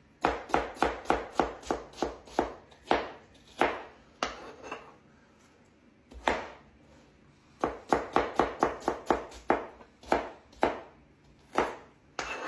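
Kitchen knife chopping onion and shallot on a cutting board: quick runs of sharp strokes, about three a second, broken by pauses and single chops.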